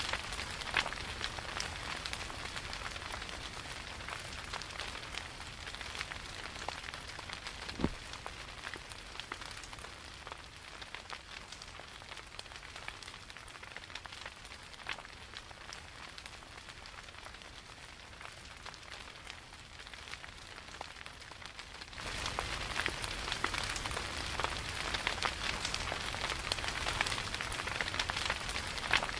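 Steady rain falling, a dense hiss full of fine drop ticks, growing louder about three quarters of the way through.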